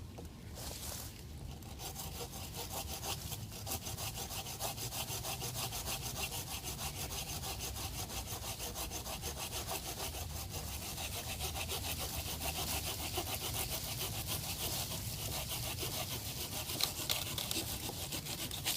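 Hand saw cutting through wood in quick, even back-and-forth strokes, starting about a second in.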